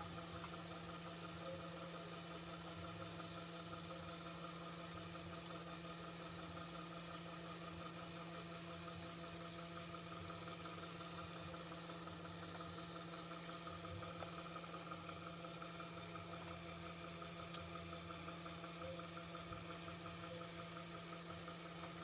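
A small motor humming steadily, with a couple of faint taps partway through.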